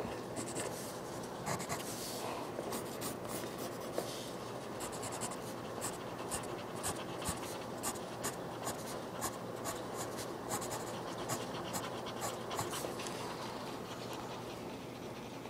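Graphite pencil scratching across paper in many short, quick strokes, several a second, as lines are drawn and shaded.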